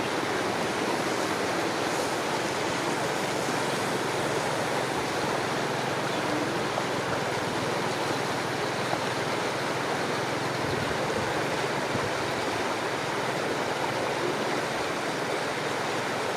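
Floodwater flowing: a steady, even rush of water with no breaks.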